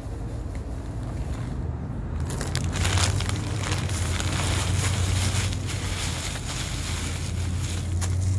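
A foil-lined Cheetos chip bag and a paper sandwich wrapper being crumpled and crinkled by hand, starting about two seconds in, over a steady low hum.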